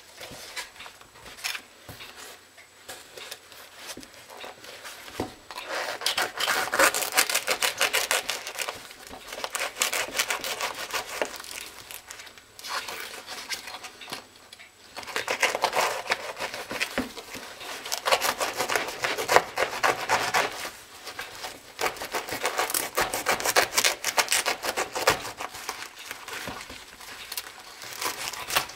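Knife blade sawing back and forth through the upper of a Nike LeBron basketball shoe, fast rasping strokes with the material tearing, in three long spells with quieter handling of the shoe between them.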